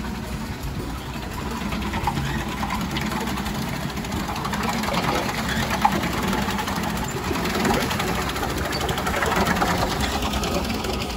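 Small wooden water wheel turning in its concrete pit, its mechanism clattering steadily over the splash of the water driving it.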